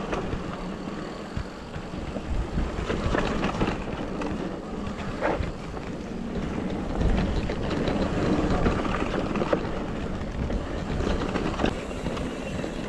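Mountain bike riding down a rough dirt trail: wind buffeting the camera microphone and the tyres and bike rattling over rocks and roots, with many short clicks and knocks.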